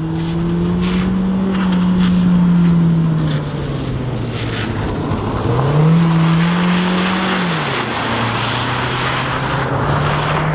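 Mazda CX-3's 146-hp four-cylinder engine accelerating hard, its note climbing and then dropping twice as the six-speed automatic upshifts, then running steadily. A rising hiss of tyres on the wet road comes in as it passes.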